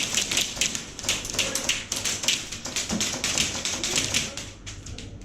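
Airsoft guns firing: a rapid run of short, sharp clicks, several a second, thinning out near the end.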